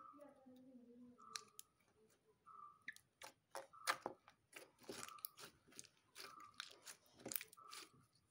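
Slime being squeezed and kneaded by hand, giving a run of wet clicks and pops that grows busier about halfway through.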